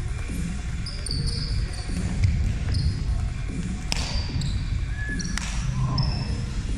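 Roundnet rally on a hardwood gym floor: sneakers squeaking in short high chirps, footsteps thudding, and a few sharp smacks of hands striking the ball, the loudest about four and five and a half seconds in. The sounds echo in the large hall.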